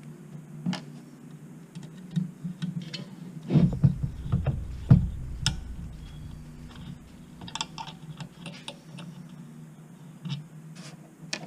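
Scattered small clicks and knocks of a screwdriver and screws being worked on the light bar's housing, as its screws are taken out, with a cluster of heavier knocks and handling bumps about four to five seconds in.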